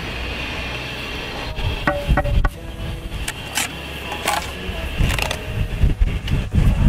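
Wind buffeting the microphone with a heavy low rumble, over which a mason's trowel and limestone pieces give several short sharp taps and scrapes as stone is set into a veneer wall.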